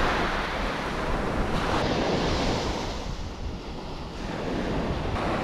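Small waves washing onto a sandy beach, with wind rumbling on the microphone; the surf dips quieter past the middle.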